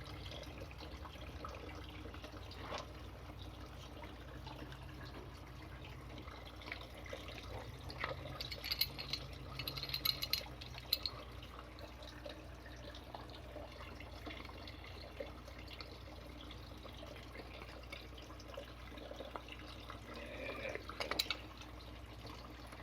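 Water trickling and dripping in an aquaponics system over a steady low hum, with a few light clicks and scrapes about eight to eleven seconds in and again near the end.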